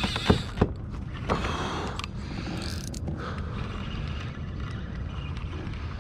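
Spinning fishing reel clicking and whirring in short spells over the first three seconds, with two sharp clicks in the first second, as a fish hits the lure. Under it runs a steady low rumble of wind and water.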